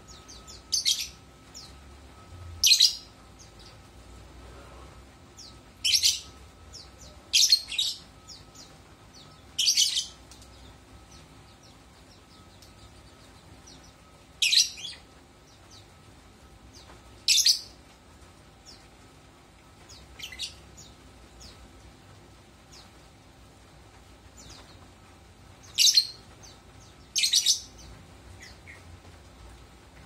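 Caged lovebirds calling: about ten short, loud, high-pitched chirps at irregular intervals a few seconds apart, with softer twittering in between.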